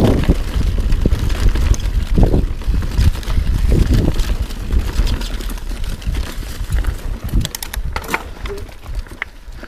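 Yeti SB6c mountain bike riding fast down a rough dirt and rock trail: a heavy, gusting rumble of wind on the microphone with rattling and knocks from the bike over the rough ground. A few sharp clicks near the end as the rumble eases.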